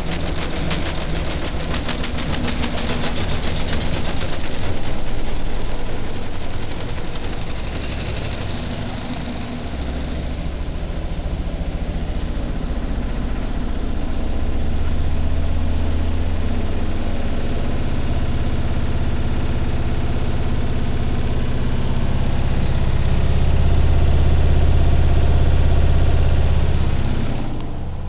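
GE washing machine running: a rapid knocking rattle for the first few seconds, then a steady low drone that swells louder twice and dies down near the end.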